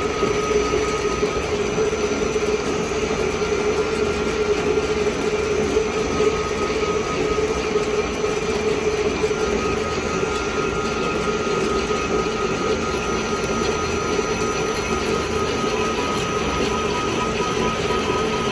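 Metal lathe running, its chuck spinning a steel bar while the tool turns it: a steady mechanical drone with a constant whine.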